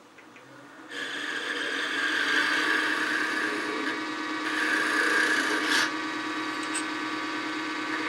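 Turning tool cutting a quarter-inch tenon on a small wooden spindle spinning on a wood lathe: a steady scraping of steel on wood over the lathe's hum, starting about a second in.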